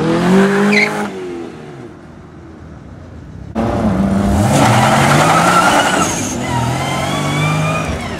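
A modified Nissan S14 accelerates past, its engine revving and then fading away. Then a modified Nissan Skyline R33 drift car pulls away hard, its engine revving up with tyres squealing.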